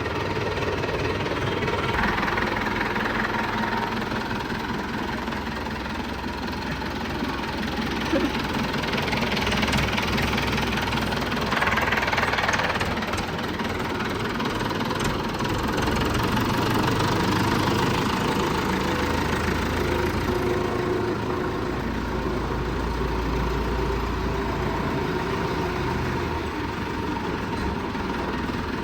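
Massey Ferguson 5900 tractor engine running steadily, with a deeper low rumble for a few seconds near the end.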